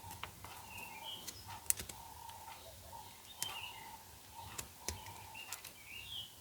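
Scattered small clicks and taps of hands and tools on a small plastic part, with birds chirping faintly in the background.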